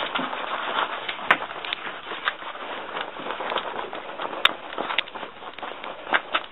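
A deck brush's stiff bristles scrubbing through a long-haired dog's coat in repeated strokes: a continuous scratchy rustle with a few sharp clicks.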